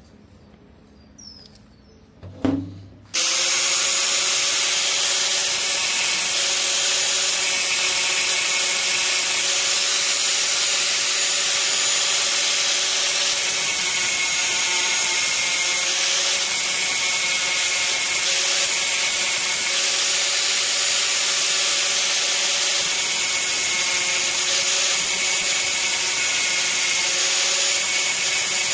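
A power tool starts about three seconds in and runs steadily under load, with a constant whine over a harsh grinding hiss, cutting out the rivets of a two-stroke's riveted gear assembly.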